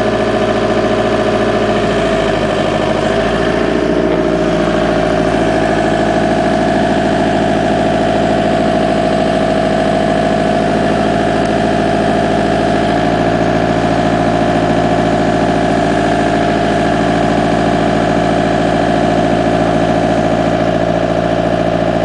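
Backhoe loader's diesel engine running steadily, close by, with slight shifts in pitch in the first few seconds.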